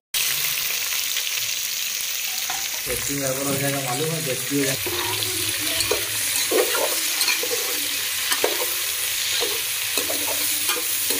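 Freshly added sliced onions sizzling steadily in hot oil in an aluminium pot, stirred and scraped around with a spatula.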